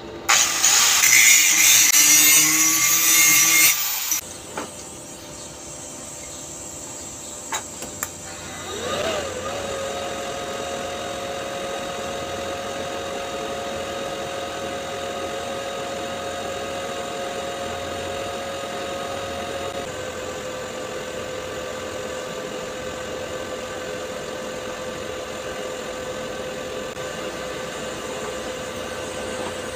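A small handheld power tool whirs loudly for about four seconds, followed by a few sharp clicks. From about nine seconds in, a welding arc on the stainless pipe's root pass runs with a steady hum, a high tone and a hiss.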